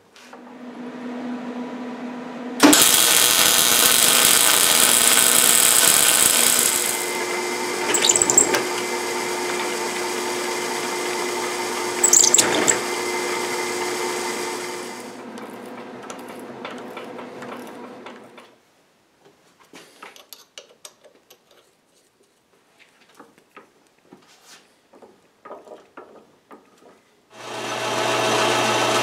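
Power tools in a metal shop: a drill press drills into a steel part clamped in a vise, loud and steady for about twelve seconds, then quieter before stopping. Light tool clicks follow, and near the end a metal lathe starts running with a drill chuck in its tailstock.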